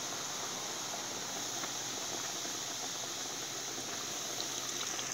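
Breaded chicken wings deep-frying in a pot of hot oil: a steady sizzle with faint crackles scattered through it.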